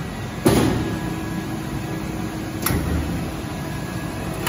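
Hydraulic slide-table high-frequency welding and embossing machine running a cycle over its steady drone: a sudden loud clack about half a second in, a steady hum for about two seconds, then a second sharp click as it ends.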